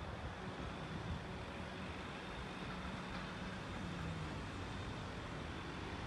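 Light van's engine running at low speed as it pulls in and rolls slowly toward the listener: a steady low engine hum over background noise.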